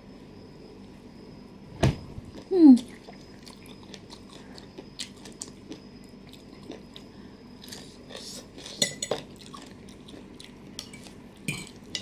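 Eating sounds: a fork clinking against a plate of mussels and noodles, with scattered small clicks and chewing. There is a sharp clink about two seconds in, followed at once by a short, loud, falling vocal sound.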